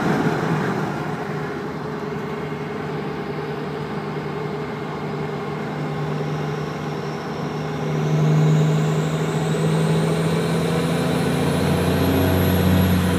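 12-valve Cummins inline-six diesel pulling under throttle, heard inside the truck's cab with the windows up, with its third-gen turbo whistling. The whistle climbs steadily in pitch through the second half as the turbo spools up and peaks near the end, while the engine note swells about two-thirds of the way in and again near the end.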